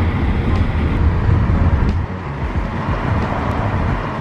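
Road noise inside a moving car's cabin: a steady low rumble with tyre hiss.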